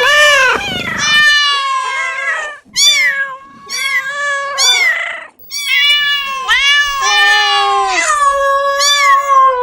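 Domestic cat meowing: a string of drawn-out meows that rise and fall in pitch, with short gaps between them and one long call running through the second half.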